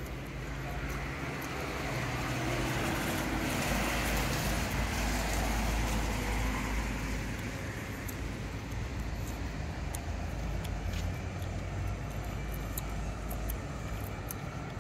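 A motor vehicle passing by on the street, growing louder for the first few seconds and fading away again after about seven seconds, over a steady rumble of town traffic.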